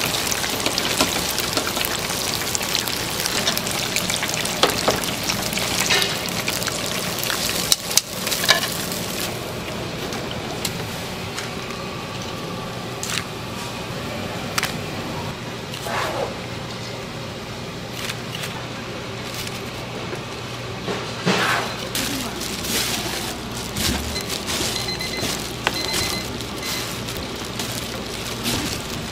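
Food sizzling in a hot pan, with scattered clicks and knocks of utensils. The sizzle thins out after about nine seconds.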